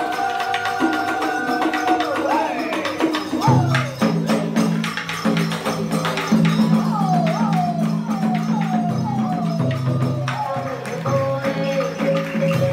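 Traditional Vietnamese water-puppet theatre music: busy hand percussion over held melodic and low sustained notes, with a run of short sliding notes midway.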